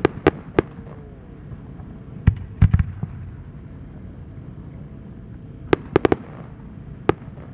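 Aerial firework shells bursting high overhead: sharp bangs in quick groups, three at the start, a cluster of about five some two and a half seconds in, another of four near six seconds and a single bang near the end.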